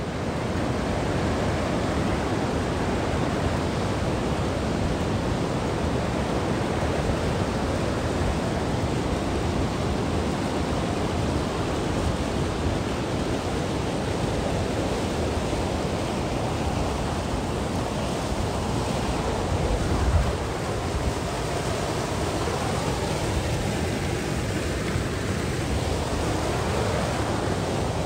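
Steady rush of river water pouring over rock at a waterfall. About two-thirds of the way through there is a brief low buffet, like wind on the microphone.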